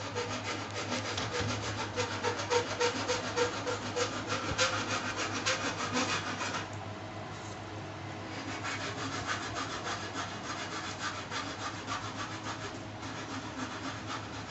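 Two Nice telescopic electro-mechanical gear motors running as they drive a double swing gate open: a steady low hum under a fast, gritty rattle that eases off about seven seconds in.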